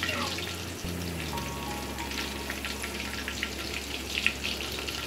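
Marinated chicken lollipops deep-frying in hot oil, a steady sizzle with many small crackles, at the end of frying when the pieces have browned.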